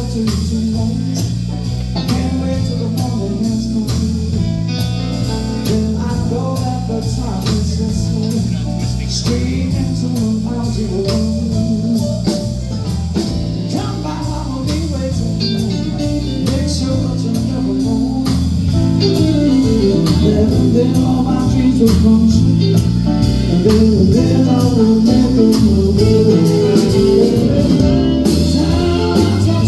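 Live band playing a blues song with guitar, bass, drums and a singer. The music gets louder about two-thirds of the way through.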